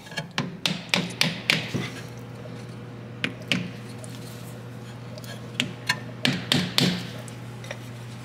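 Hammer striking a small hardwood block to drive a new ABS tone ring onto the rear axle shaft's CV joint housing. The sharp taps come in quick runs of several strikes with pauses between them, as the ring is worked evenly around its edge. A steady low hum runs underneath.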